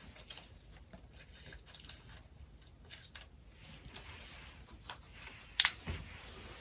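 Scattered light clicks and rustles of small objects being handled, with one sharp click a little before the end.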